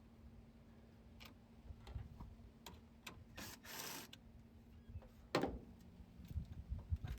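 Faint scattered clicks and short scrapes of hands handling the truck's fuse and relay box, with a louder knock about five seconds in.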